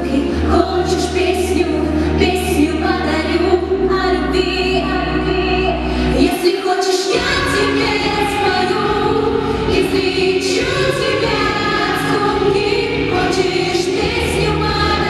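Choir singing with instrumental accompaniment over sustained bass notes; the bass drops out briefly about six and a half seconds in.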